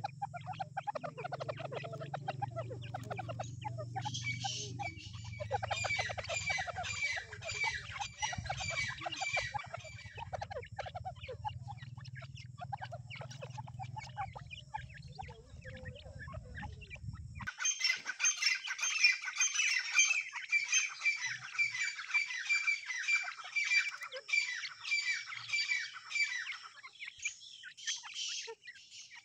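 Partridge chicks calling continuously while they feed: dense runs of quick, high twittering peeps with some lower clucking notes. A low steady hum underneath stops suddenly a little past halfway.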